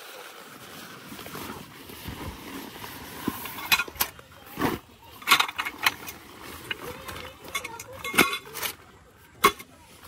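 Tent fabric rustling and crinkling as a folded tent is pulled out of its storage bag by hand, with several sharp crackles of the fabric in the middle and latter part.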